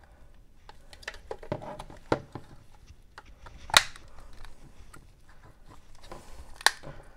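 Ultrasonically welded plastic case of a printer's switch-mode power supply being pried apart with a small metal tool: scraping and creaking with scattered clicks, and two sharp cracks, one about four seconds in and one near the end, as the welded seam is broken.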